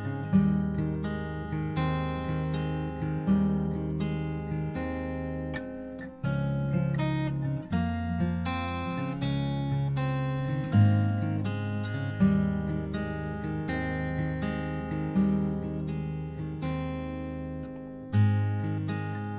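Background music: acoustic guitar played with steady strummed and plucked chords.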